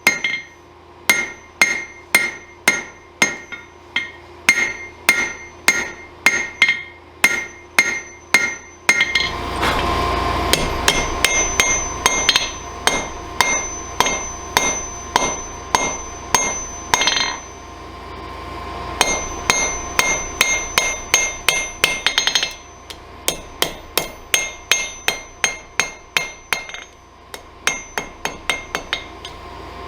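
Hand hammer blows on a hot wrought-iron railroad spike over an anvil, about two strikes a second, each with a short metallic ring, drawing out the point. For a stretch in the middle a steady rushing noise rises under the blows and then falls away.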